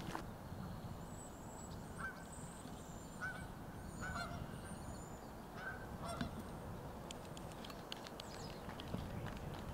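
Geese honking: several short, spaced-out honks.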